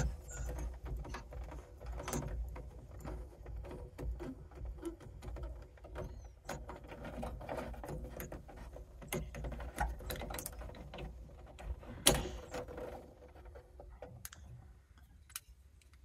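Red plastic head of a combi boiler's pressure relief valve being unscrewed by hand from its brass body: a run of small irregular clicks and scrapes from the threads, with one louder click about three-quarters of the way through.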